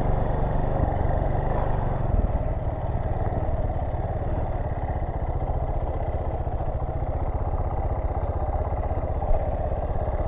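Dirt bike engine running at low speed, a little louder for the first two seconds, then steady and even as the bike rolls slowly along.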